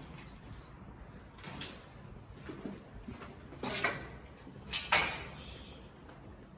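Footsteps scuffing and scraping on a gritty, debris-strewn floor: a few short scrapes, the two loudest a little past halfway and about a second apart.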